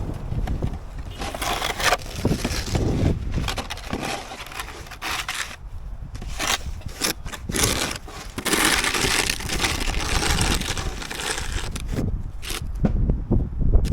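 Snow shovel scraping and crunching through snow in irregular strokes.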